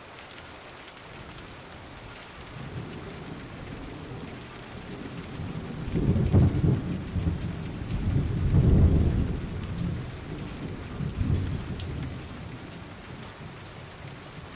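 A steady hiss of rain and water. Loud, irregular low rumbles break over it about six to ten seconds in, probably wind buffeting the microphone, with a smaller one near eleven seconds.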